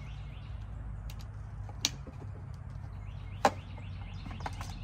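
Two sharp plastic clicks, about a second and a half apart, as taillight bulb sockets on the wiring harness are snapped into place, over a steady low hum.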